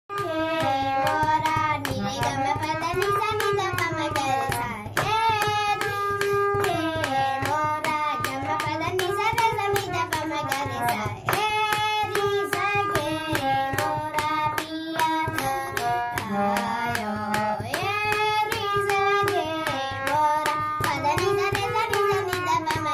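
A boy singing an Indian classical melody in long, gliding, ornamented phrases, accompanying himself on a harmonium whose reeds hold a steady drone beneath the voice. A regular clicking beat runs under the music.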